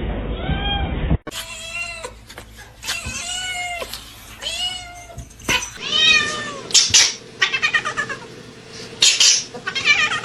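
Domestic cats meowing: a series of drawn-out meows, one after another, with a few short clicks between them. The sound changes abruptly about a second in.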